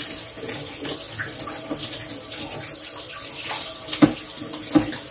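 Kitchen tap running steadily as an air fryer's grill rack is rinsed under it. Two sharp knocks come about four and five seconds in.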